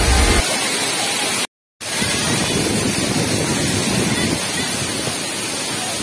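Waterfall: a steady rush of falling water, broken by a complete dropout of the sound for about a third of a second, about a second and a half in.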